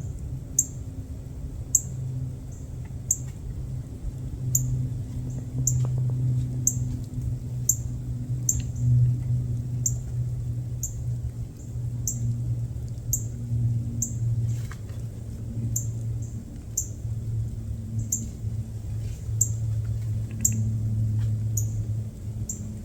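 A short, high chirp repeated about once a second, the steady call note of a small bird, over a constant low rumble.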